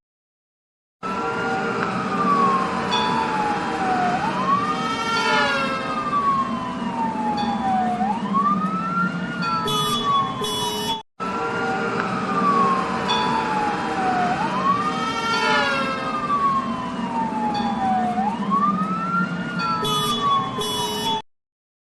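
Police car siren wailing, its pitch rising quickly and falling slowly about every four seconds over a low traffic rumble. It cuts out for a moment about halfway through and the same recording starts again.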